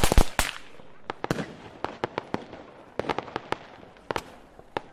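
Logo-intro sound effect: a loud crackling burst at the start, then scattered sharp firework-like crackles that thin out and fade away.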